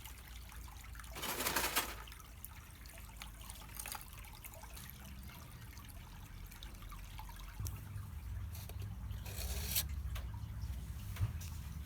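Small wood fire burning on charcoal in a shichirin, with scattered crackles and two short hissing flare-ups, one about a second in and one near the end.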